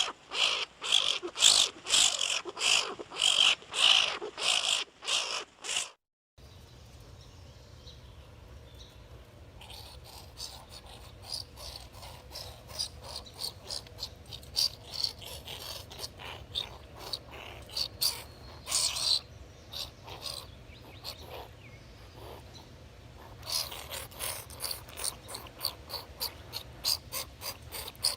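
Skunk squeaking and chattering: a run of quick, high squeaks, two or three a second, that cuts off suddenly about six seconds in. Then, over a low steady hum, comes a quieter stretch of fainter squeaks and clicks that grows busier near the end.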